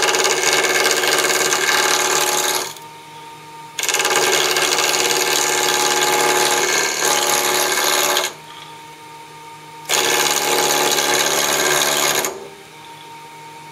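A 3/4-inch spindle gouge cutting into a spinning square Douglas fir blank on a Grizzly variable-speed bench-top mini-lathe: three loud rough cuts of a few seconds each as the wood chips away in the first roughing toward a cylinder. The lathe's motor hums steadily in the two pauses between cuts.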